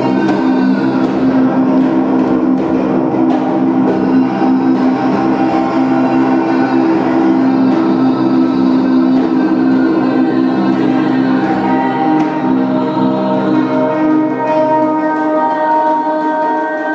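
Live improvised music with an electric guitar, made of long held droning tones that overlap without a clear beat; higher held tones join about two-thirds of the way through.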